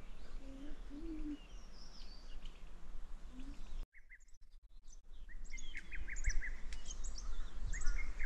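Small birds chirping, many short quick calls over a faint low hum. The sound drops out for about a second just before the middle, then the chirping comes back busier.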